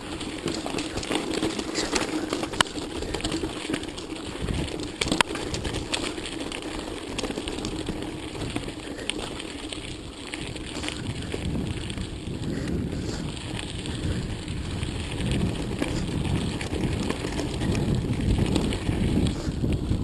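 Mountain bike riding down a rocky, gravelly dry riverbed: tyres crunching over stones and the bike rattling, with a couple of sharper knocks about two and a half and five seconds in as it strikes rocks.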